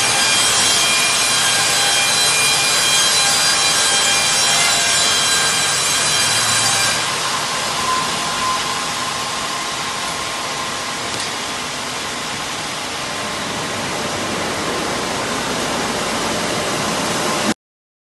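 Electric band sawmill (Serra Alpina KE 90) running and sawing a log: a loud, steady noise with several high steady tones. About seven seconds in, the tones drop away and the sound goes a little quieter and rougher. It cuts off suddenly near the end.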